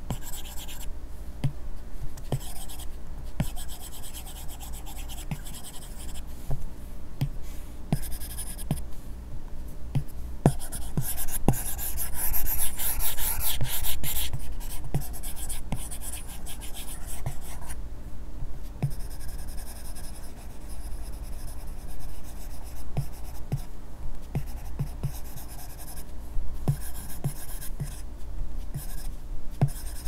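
Stylus drawing on an iPad Pro screen covered with a paper-texture film, its bare nib making scratchy strokes and light taps, with the busiest, loudest stretch of strokes around the middle.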